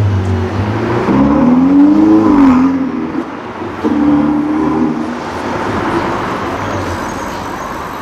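Ferrari 488's twin-turbo V8 accelerating as the car drives off: the revs climb, drop at a gear change about three seconds in, pick up again, then fade as it pulls away.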